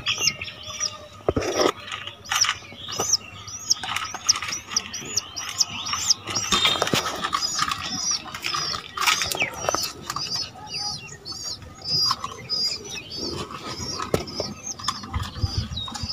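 A bird in a pigeon loft chirping in a fast, even series of short high peeps, about three a second, with scattered knocks and flutters from the caged pigeons.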